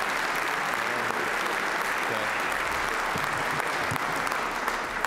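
A chamber full of legislators applauding, a steady round of clapping.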